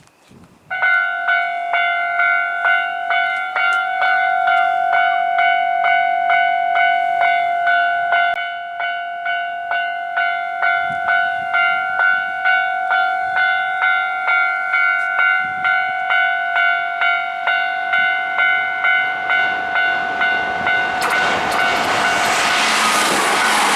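Japanese level-crossing warning bell starts about a second in and rings steadily, a bit under two strokes a second. Near the end a Hankyu Kyoto Line train arrives at the crossing, and the rising rush of its passing drowns the bell.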